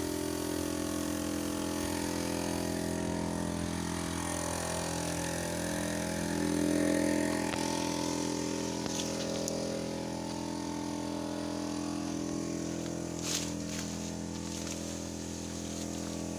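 A steady mechanical hum from a running motor or engine, swelling briefly about halfway through, with a few light clicks.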